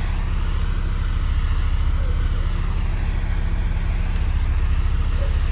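Handheld torch flame burning steadily with a low rumble, held to a rubber steering wheel rim to soften it for retexturing.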